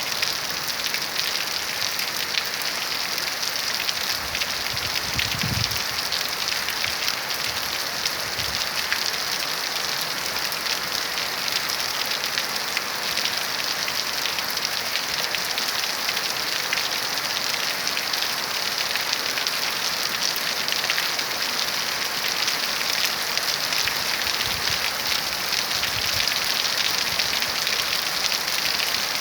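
Heavy rain falling steadily, a dense patter of drops on hard surfaces, with a few brief faint low rumbles.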